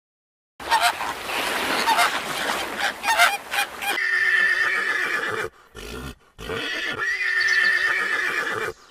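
Horses whinnying. A noisy stretch comes in about half a second in, then two long whinnies follow, the first about four seconds in and the second about seven seconds in. Each whinny holds a low pitch and a high pitch at once.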